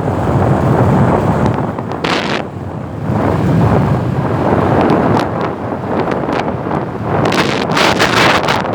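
Wind buffeting the microphone: a loud, uneven rumble with hissing surges about two seconds in and again near the end.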